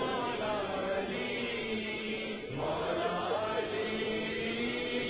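Slow, wordless mournful chanting voices over a steady held low drone, with a voice line entering and gliding upward about halfway through.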